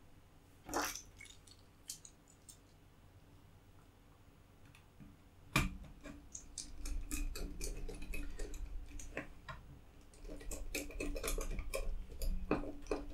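A small precision screwdriver driving screws to fasten a Raspberry Pi board to a plastic sled. A few scattered clicks and taps, a louder knock about five and a half seconds in, then a dense run of small ticks over a low handling rumble.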